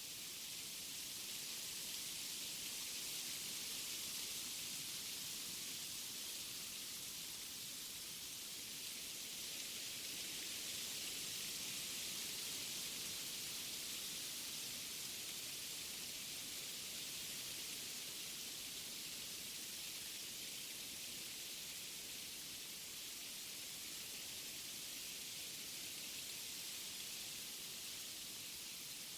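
Wind through forest trees: a steady, high hiss of rustling leaves that swells gently a couple of times and eases off again.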